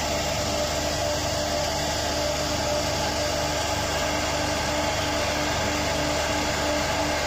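CNC router spindle running steadily as its bit carves a relief pattern into wood: an even hum and whine over the hiss of cutting, one of its tones beginning to pulse near the end.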